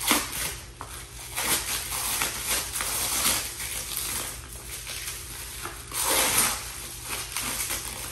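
Plastic bubble wrap crinkling and rustling in irregular bursts as a wrapped item is pulled out and unwrapped by hand, loudest right at the start and again about six seconds in.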